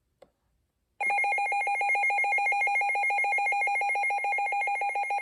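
Midland WR300 weather alert radio, Version 8, sounding its alert siren: a loud electronic tone that starts about a second in and warbles rapidly and evenly between pitches, running on steadily.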